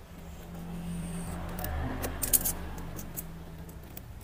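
A small knife blade scraping and cutting through the plastic shrink wrap along the edge of a smartphone box, with a few sharp clicks about two seconds in. A faint low hum sits underneath for the first three seconds.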